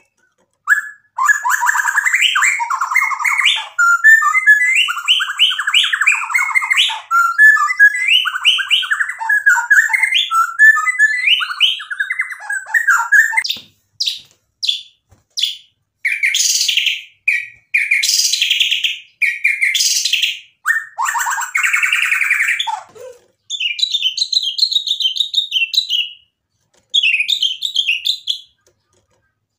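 White-rumped shama (murai batu) singing: a long run of rapid, varied whistled and chattering phrases, then a series of harsh rasping notes about halfway through, and quick high trilled phrases near the end.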